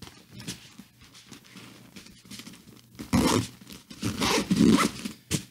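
Ripstop nylon camera bag being handled as its expanded bottom is packed back down: soft fabric rustling, then several louder scraping bursts about three seconds in.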